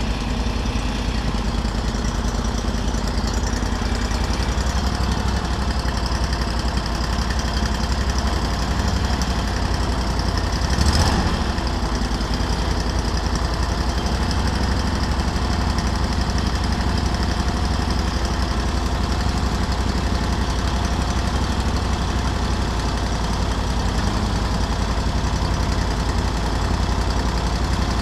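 Off-road buggy engine running steadily at idle, heard close up from the roll cage, with one brief thump about eleven seconds in.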